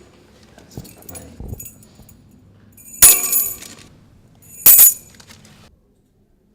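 Two loud jangling clashes of small hard objects, about a second and a half apart, each ringing briefly in a bright, high jingle before dying away.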